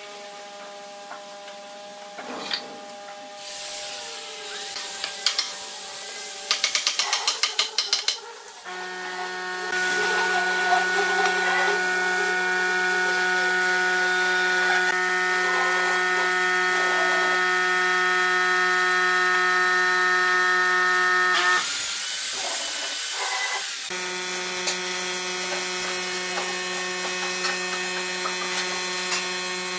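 A steady electric hum, stepping up louder about nine seconds in and breaking off for a couple of seconds past the twenty-second mark. Over it come a quick run of about a dozen clicks around the eight-second mark and occasional knocks of wood and clamps being handled.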